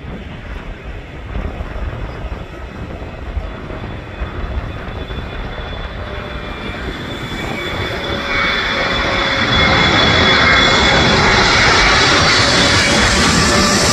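Boeing 777-300ER on final approach: its twin GE90 turbofans give a jet rumble with a thin whine that grows steadily louder as the airliner comes in low overhead.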